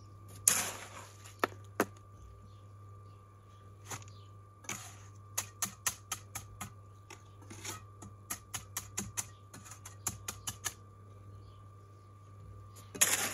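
Steel trowel scraping wet concrete out of a wheelbarrow, then runs of quick sharp taps, about four a second, as the concrete is worked into the step form; a last scrape near the end.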